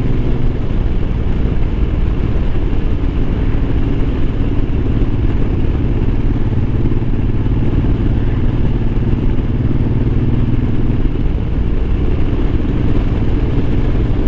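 Suzuki Boulevard M90's 1500 cc V-twin running steadily at cruising speed, under a steady rush of wind.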